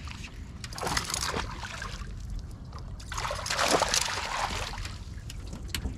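Hooked bass splashing at the water's surface beside the boat as it is scooped into a landing net, with a short splash about a second in and a longer, louder burst of splashing a little after three seconds.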